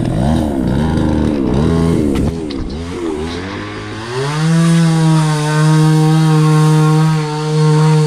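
Two-stroke chainsaw revved in short bursts, its pitch rising and falling several times. From about halfway it is held at a steady high pitch at full throttle, with a brief drop near the end, as storm-fallen branches are cut up.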